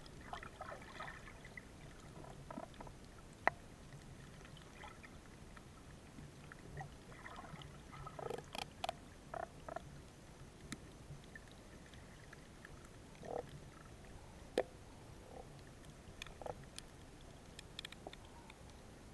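Muffled underwater sound of water moving and bubbling around a camera held just below the surface while snorkeling. Faint, with scattered sharp clicks and a cluster of short bubbly noises about eight to ten seconds in.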